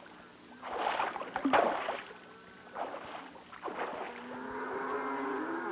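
Cattle splashing into river water, loudest about a second and a half in, followed by a held, multi-toned pitched sound that steps up in pitch near the end.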